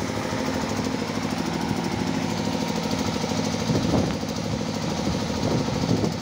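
Small engine running steadily with a fast, even knocking pulse. A brief louder burst comes about four seconds in.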